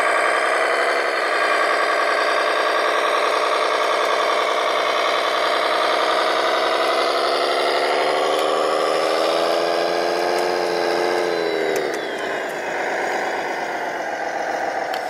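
Radio-controlled model construction machine running steadily with an engine-like sound; its pitch creeps up, then falls sharply about twelve seconds in, and it carries on a little quieter.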